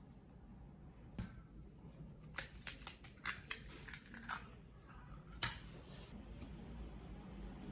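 An egg being cracked into a glass mixing bowl: scattered sharp taps and shell crackles, with one louder click about five seconds in.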